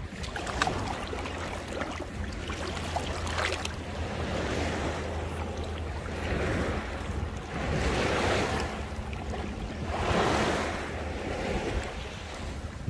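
Shallow sea water sloshing and small waves lapping close to the microphone, with wind rumbling on the microphone. The splashing swells louder several times in the second half.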